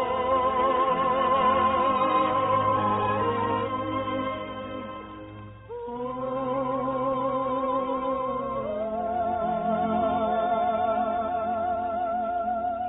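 Operatic singing with a wide vibrato over orchestral accompaniment, in an old radio recording with no high end. The singer holds long notes, starts a new phrase about six seconds in, and moves up to a higher note held until the song ends.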